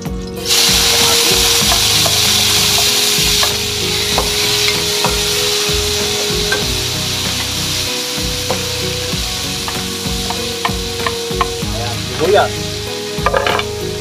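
Sliced tomatoes dropped into hot oil with garlic in an aluminium wok. A loud sizzle starts suddenly about half a second in and settles to a steady frying hiss, with a wooden spatula scraping and tapping the pan as it stirs. A few knocks near the end come as sliced onion goes in.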